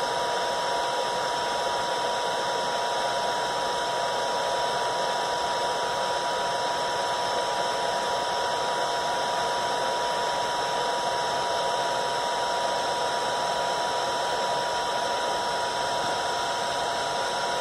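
Heat gun running steadily on its low setting: an even rush of blown air with a steady whine in it.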